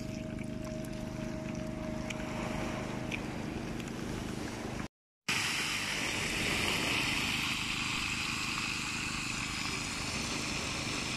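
Hot oil sizzling in a frying pan on a portable gas stove, a steady dense hiss from about five seconds in, after a brief cut in the sound. Before the cut, a steady low hum.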